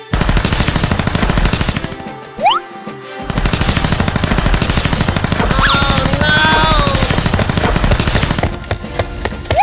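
Rapid rattling sound effect like automatic gunfire, in two long bursts with a short rising whistle between them, and some warbling electronic tones in the middle of the second burst.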